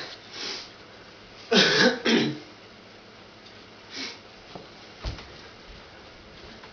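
Two short, harsh vocal bursts from a man about a second and a half in, followed by a fainter one and a single sharp knock near the end.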